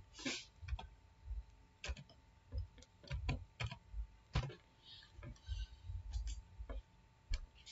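Light, irregular clicks of computer keyboard keys and a mouse button, about two or three a second, as a short code is typed in.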